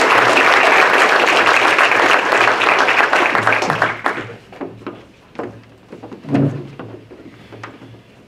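Audience applauding, dying away about four seconds in, then scattered footsteps and knocks on a wooden stage with one louder thump a couple of seconds later.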